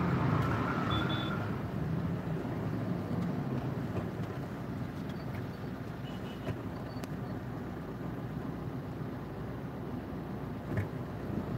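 Steady rumble of road traffic and the car's own engine and tyres, heard from inside a car's cabin moving slowly in dense city traffic. A few faint, brief high tones are heard about a second in and again midway.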